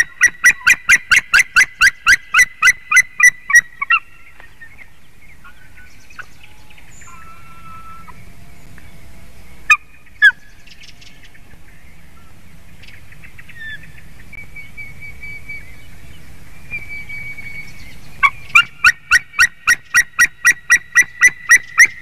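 White-tailed eagle calling in a fast run of loud yelping notes, about four or five a second, for the first four seconds and again from near the end; in between come fainter calls and two sharp single sounds about ten seconds in. These calls are the resident female's whining from above while a strange male eats her egg in the nest.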